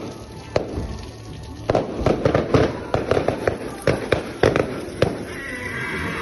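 Fireworks going off: an irregular series of sharp bangs and crackling pops, a single one early and then rapid clusters from about two seconds in.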